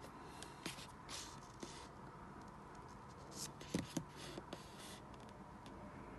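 Paper pages of a paperback manga volume rustling softly as a page is turned by hand, with a couple of light taps about four seconds in.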